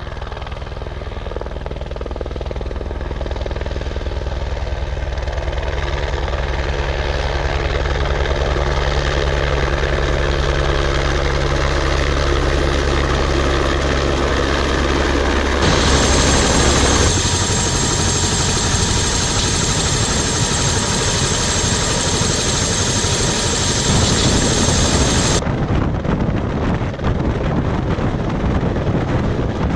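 Helicopter running close by with a fast rotor beat, growing louder over the first several seconds. A high whine joins in for about ten seconds midway.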